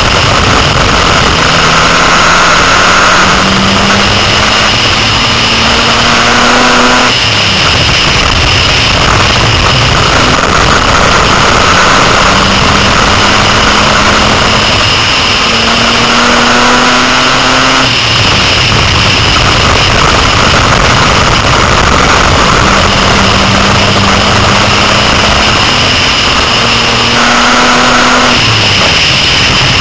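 Six-cylinder dirt-track race car's engine heard from inside the car, its pitch climbing for several seconds down each straightaway and dropping sharply as the throttle is lifted for the turns, three times over, with steady wind and road noise throughout.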